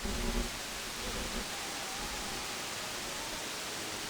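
Steady hiss of band noise from a CB radio receiver with its squelch open while no station is transmitting.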